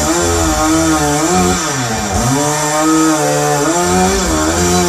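Chainsaw engine revving, its pitch dropping and climbing again a few times.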